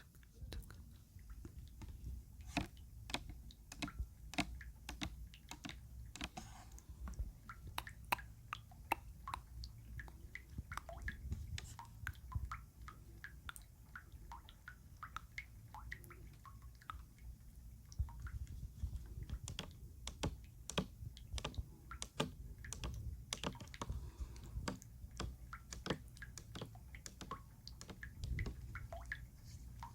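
Close-miked ASMR water sounds: a dense, irregular run of small wet clicks and drips.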